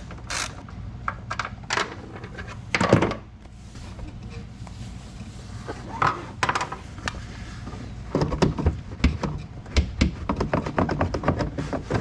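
Ratchet clicking on the seat's 10 mm bolt, then a heavy thunk about three seconds in and a run of knocks and rattles from about eight seconds on as the rear side seat cushion is worked up and pulled free.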